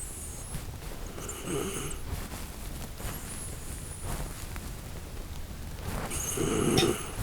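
Shiba Inu snoring in her sleep: two snoring breaths, one about a second and a half in and a louder one near the end.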